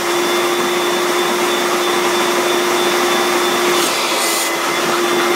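Shop vac running steadily with a constant whine, its air flow through the hose driving a wooden reciprocating air engine.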